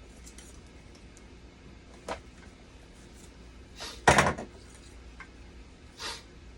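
A few sharp knocks, like something solid being set down or shut, the loudest about four seconds in, over a faint low hum.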